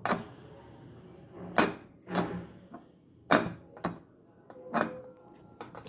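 Aluminium pressure cooker lid clanking against the pot's rim as it is worked free and opened after the pressure is released: a handful of sharp metallic knocks spread over a few seconds, with light scraping between them.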